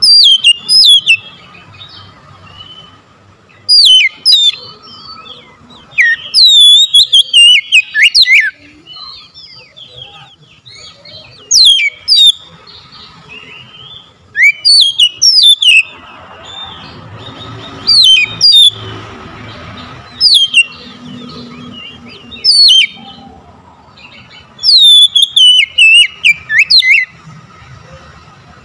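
Oriental magpie-robin singing: about nine loud phrases of quick, sweeping, mostly falling whistles, separated by pauses of one to three seconds.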